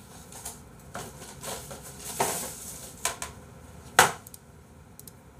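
A handful of light clicks and knocks from objects being handled, the sharpest one about four seconds in.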